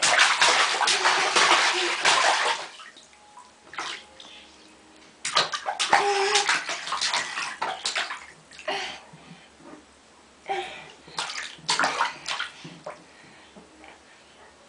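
A toddler splashing bathwater with his hands in a bathtub, in three loud spells of splashing with quieter pauses between.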